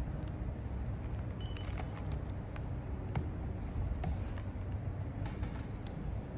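Light handling noise: scattered small clicks and taps from fingers handling a small black electronic device, over a steady low background rumble.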